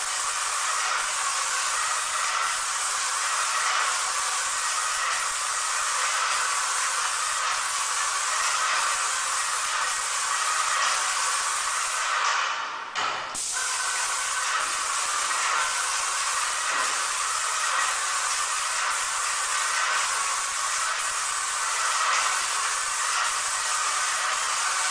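Airless spray gun of a Menegotti airless paint sprayer hissing steadily as it sprays paint onto a wall, cutting out briefly about halfway through.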